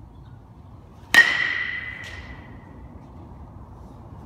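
A metal baseball bat hitting a pitched ball about a second in: a sharp ping that rings on and dies away over about a second in the big hall. About a second later there is a fainter knock as the ball hits something further off.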